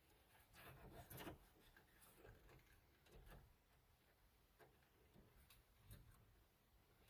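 Near silence with a few faint, scattered clicks and taps, the kind made by handling small plastic parts and connectors.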